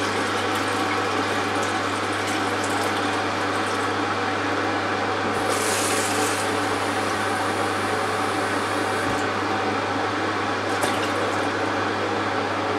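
Tap water running steadily into a plastic jug to top up a homebrew fermenting bucket to 24 litres, turning briefly hissier about halfway through.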